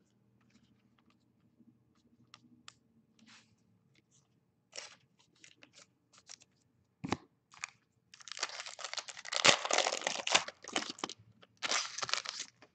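Foil trading-card pack being torn open and crinkling, in two spells in the second half, after some light clicks and rustles of cards being handled and a single knock on the table.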